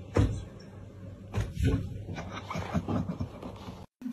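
Several dull thumps with rustling of bedding as a cat moves and jumps about on a duvet. The loudest thump comes just after the start, and lighter ones follow through the next few seconds before the sound cuts off.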